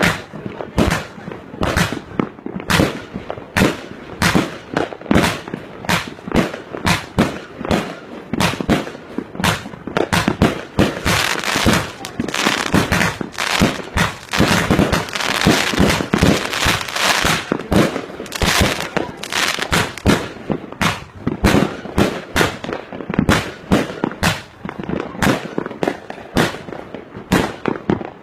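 New Year fireworks going off in rapid succession, sharp bangs several times a second, thickening into a continuous crackling barrage about midway through before thinning back to separate bangs.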